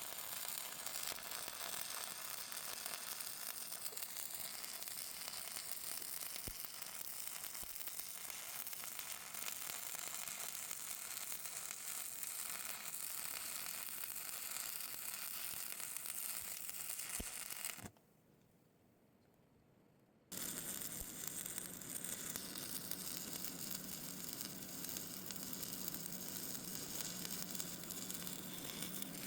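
Stick-welding arc crackling and sizzling steadily as 7018 rods lay beads. It stops for about two seconds past the middle, then starts up again.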